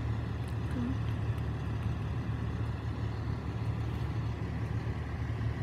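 Fire engine's diesel engine idling, a steady low rumble.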